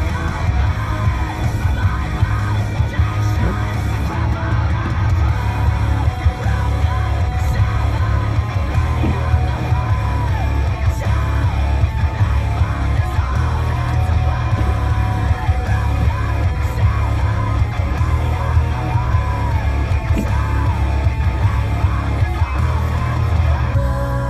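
Background music: a loud rock song with guitar, a heavy bass line and a shouted, sung vocal.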